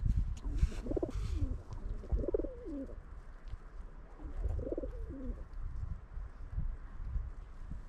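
Feral pigeons cooing: three separate coos, each rising and falling in pitch, over a low rumble.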